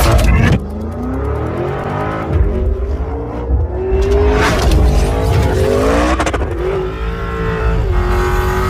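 Car engine revving hard and accelerating: its pitch climbs, falls back at gear changes about four and a half and six seconds in, and climbs again, ending on a steady high note.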